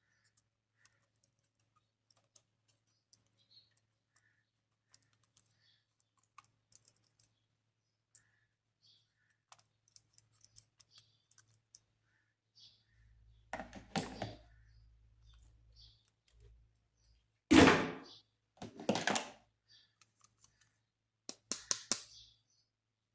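Plastic toys and packaging being handled, with light scattered clicks and taps. Louder handling noises come in the second half, the loudest about three quarters of the way in, and a quick run of sharp clicks follows near the end.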